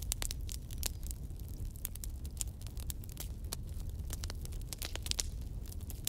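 Wood bonfire crackling: a dense, irregular run of sharp snaps and pops over a low, steady rumble.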